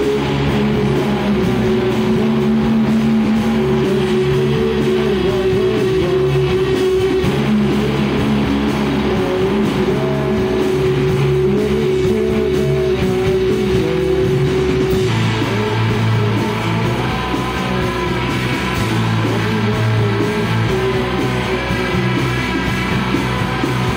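Noise-pop/shoegaze band playing live: loud electric guitars over bass and drums, with held, ringing chords. The chord changes about fifteen seconds in.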